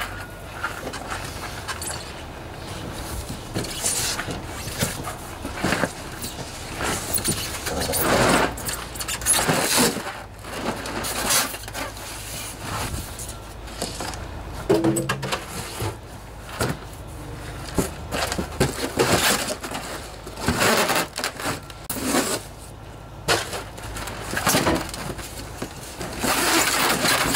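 A cardboard shipping box being opened and pulled away from a new engine: irregular scraping, rustling and knocking of cardboard and packing foam.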